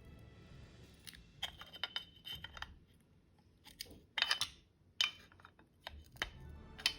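Small steel parts of an AR-15 lower receiver clicking and clinking as they are handled and fitted, in irregular clusters of sharp taps with a brief metallic ring, the loudest about four seconds in and again about five seconds in.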